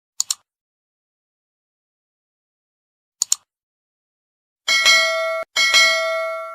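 Added sound effects: a quick double click like a mouse click, then another about three seconds later, then two bright bell dings close together near the end, the second ringing on.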